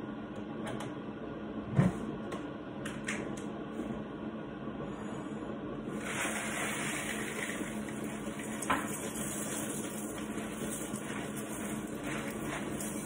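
Kitchen tap turned on about six seconds in, water running steadily into the sink, over a low steady hum. A sharp knock about two seconds in and a lighter click later, like dishes or a pan being set down.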